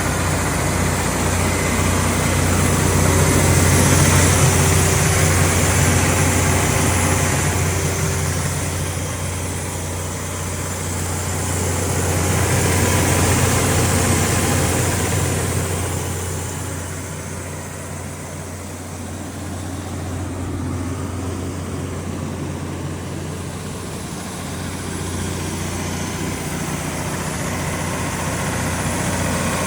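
Cummins QSX15 inline-six diesel engine of a 500 kW generator set running steadily at its generator speed of 1800 rpm: a deep, constant hum whose loudness slowly swells and fades.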